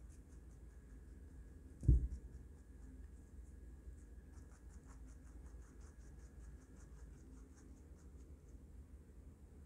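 A baby rabbit chewing diced carrot and lettuce: a quick run of faint, crisp crunches, with one short low thump about two seconds in.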